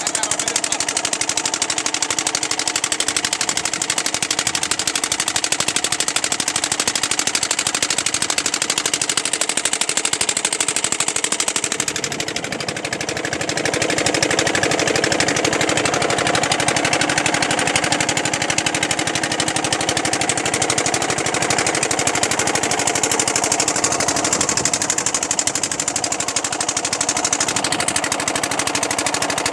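A boat's engine running steadily, with a fast, even knocking beat.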